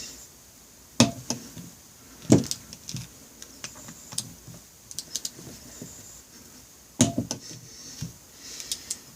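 Sharp metallic clicks and knocks of hand tools being worked and handled during bolt torquing. There are three louder knocks, about a second in, near two and a half seconds and at seven seconds, with lighter ticks between.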